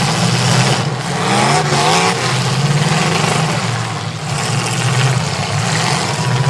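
Demolition derby cars' engines running and revving, one climbing in pitch about a second and a half in, over a steady wash of noise.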